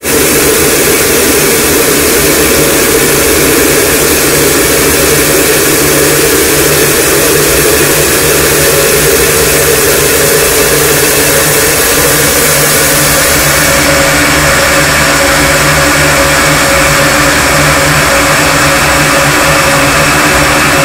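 Harsh noise wall: a loud, unbroken mass of distorted static across every pitch, with steady droning bands underneath. The top end changes texture about fourteen seconds in.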